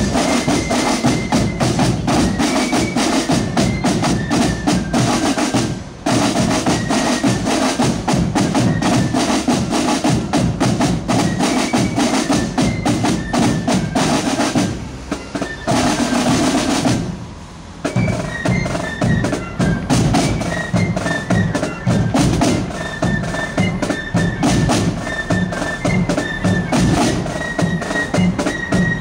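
Marching flute band playing: snare drums and a bass drum under a high flute melody, with brief breaks about six, fifteen and seventeen seconds in.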